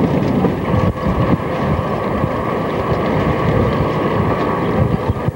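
Steady rumbling, rattling road noise from riding along a street in a cycle rickshaw.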